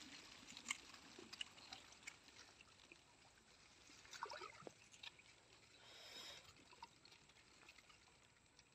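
Faint water sounds, with scattered small drips and trickles and a few soft gurgles about four to five seconds in, against near silence.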